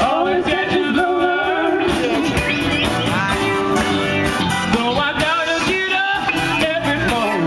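Live band playing a song, with a singer.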